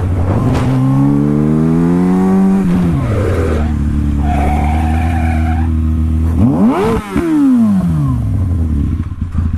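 Motorcycle engine revving up through a gear, dropping at a shift about three seconds in, then running on. A high screech, like tires under hard braking, lasts about a second and a half near the middle. Near 7 s comes a quick rev that rises and falls.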